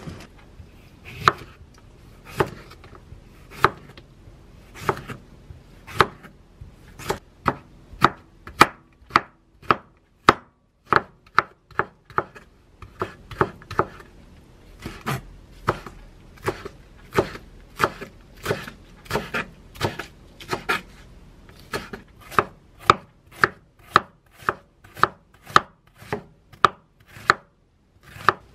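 Knife chopping on a wooden cutting board, a run of sharp knocks as cucumber is cut into thin strips and then an onion is sliced. The strokes come about one a second at first and quicken to about two a second in the second half.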